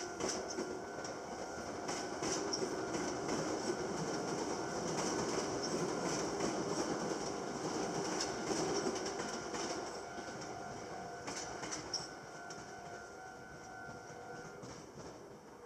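A Meitetsu train passing over the level crossing, its wheels clacking over the rail joints, loudest in the middle and then fading. The crossing's warning bell keeps ringing throughout and stops about a second before the end.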